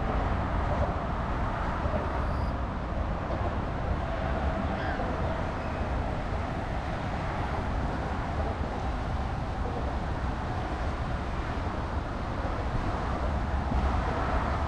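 Steady outdoor ambience: a low, even rumble of traffic with no distinct events.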